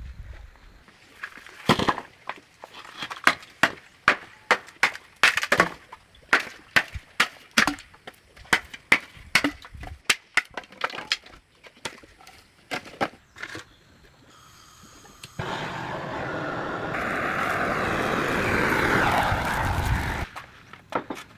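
An irregular run of sharp knocks, about two a second, for some twelve seconds. After a short lull comes a steady rushing noise that lasts about five seconds and cuts off suddenly.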